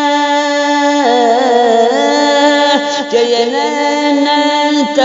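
A man singing an Urdu naat, stretching one phrase into a long held note with wavering melismatic turns about a second in and again past the halfway mark.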